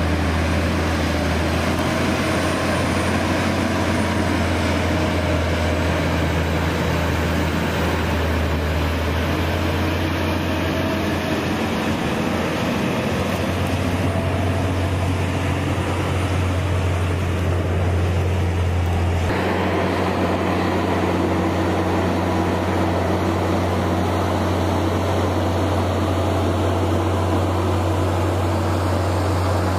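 Aircraft tow tractor's diesel engine running steadily, a low drone with a rushing wash over it. The sound changes abruptly about two-thirds of the way through.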